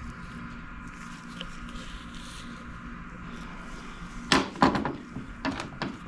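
A few sharp clicks and knocks about four seconds in, as a small engine part (a carburetor intake plate and gasket) is handled and turned over in gloved hands, over a steady background hum.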